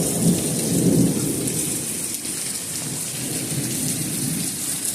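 Thunderstorm: steady hiss of rain with a low rumble of thunder, strongest in the first second or so and then easing off.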